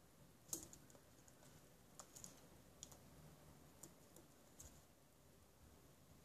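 Faint clicking and tapping of a feral pigeon's claws and beak on a windowsill: one sharp click about half a second in, then a few fainter taps over the next four seconds.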